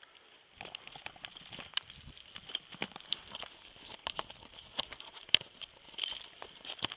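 Footsteps on rough, gritty ground, a step about every two-thirds of a second, mixed with scuffs and small clicks.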